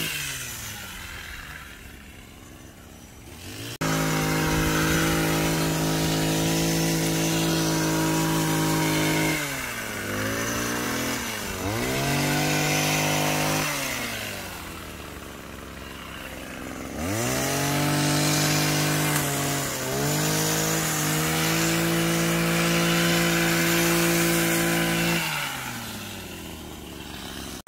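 Engine-powered hedge trimmer running at full throttle, trimming shrubs. It comes in loud about four seconds in, and its pitch sags and climbs back several times as the throttle is let off and squeezed again, before it dies away near the end.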